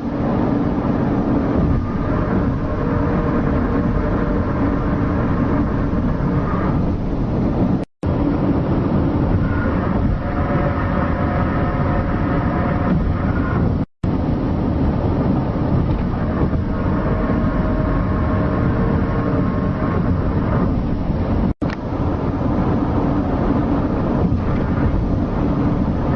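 A loud, steady, low droning rumble with several sustained groaning tones layered over it, the kind of mysterious sky sound in amateur recordings of so-called apocalyptic sounds. It is cut abruptly into segments about 8 s, 14 s and 21 s in.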